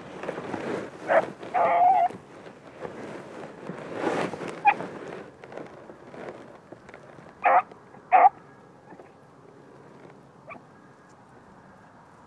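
A dog giving several short, pitched calls: a few in the first two seconds, a pair close together about two-thirds of the way through, and a faint one near the end. A rough, noisy sound runs through the first half.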